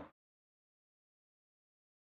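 Dead silence: the audio cuts off abruptly right at the start and nothing at all follows.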